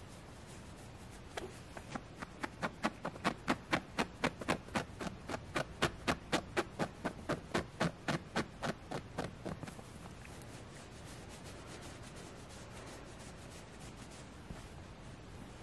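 Fingernails scratching the soft plush fabric of a Squishmallow stuffed toy in quick, even strokes, about four or five a second. The scratching turns much fainter about ten seconds in.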